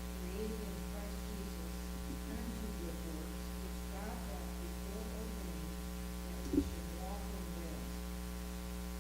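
Steady electrical mains hum, with a faint voice reading aloud underneath it and a single short knock about six and a half seconds in.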